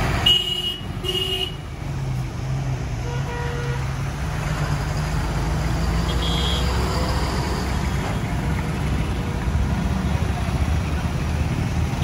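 Heavy diesel trucks running in slow roadside traffic, a steady low engine rumble, with two short horn toots in the first second and a half and another brief toot about six seconds in.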